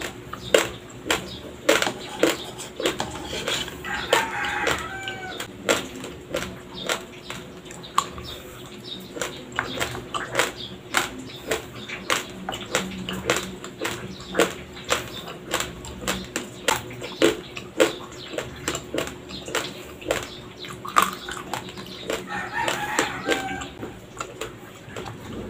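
Raw Dinurado white rice crunched between the teeth while chewing: sharp, irregular cracks a few times a second. A rooster crows twice, about four seconds in and near the end.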